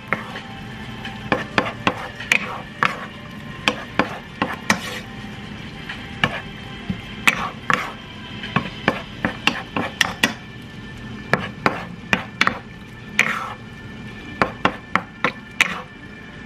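A wooden spoon stirring cherry tomatoes and shallots in a ceramic-coated frying pan, with irregular sharp knocks and scrapes of the spoon against the pan, a few a second, over a low sizzle.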